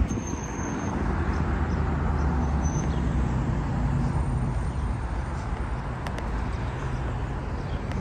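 Street traffic: a passing car's low engine hum over steady road noise, the hum strongest in the first few seconds and then easing off.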